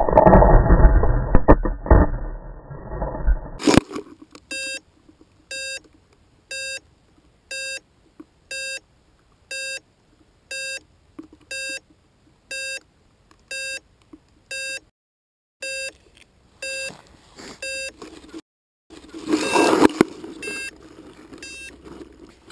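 A Blade 350 QX quadcopter crashing into grass: a few seconds of loud, rough noise. Then a short electronic beep repeats about once a second for roughly fourteen seconds, and loud rustling in the grass follows near the end.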